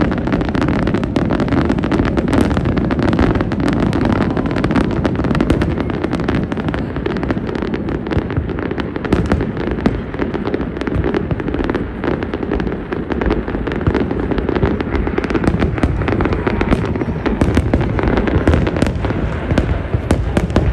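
Fireworks bursting in a dense, continuous barrage, many sharp bangs and crackles following one another without pause.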